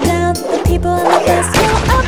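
Instrumental children's song music with a steady drum beat and synthesized melody notes.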